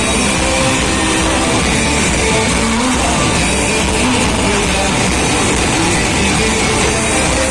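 Live rock band playing loudly with electric guitar, bass and drums, the sound dense and distorted as heard from the floor.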